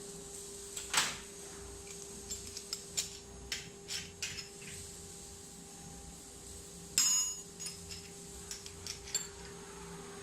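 Metal tools and spindle parts clinking and tapping in scattered, irregular knocks, with one louder ringing metallic clank about seven seconds in. A steady hum runs underneath.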